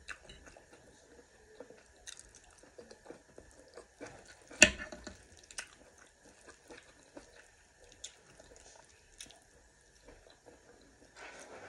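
Close-up chewing and biting sounds of a person eating fish: small wet mouth clicks and smacks throughout, with one sharp click about four and a half seconds in.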